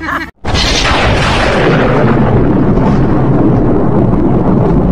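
Explosion-like sound effect: a sudden loud blast about half a second in, its hiss fading over the next second or two into a steady, loud rumble.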